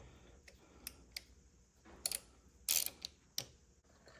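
Sharp metallic clicks and scrapes from adjusting the jaws of a lathe chuck, one jaw moved in and the opposite one out to center the workpiece. About half a dozen separate clicks, the loudest a little after halfway.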